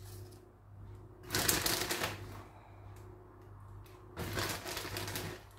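Two bursts of crinkly rustling, about a second each and some three seconds apart, as a packet of grated cheese is handled. A steady low hum runs underneath.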